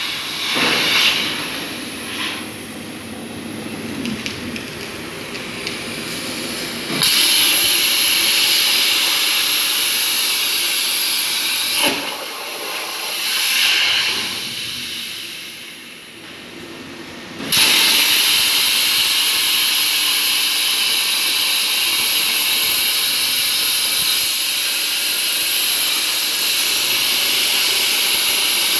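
CNC plasma torch cutting 2 mm sheet metal: a loud, steady hiss of the arc and air jet. The arc comes on about a quarter of the way in, cuts out briefly near the middle and fires up again for a long steady cut.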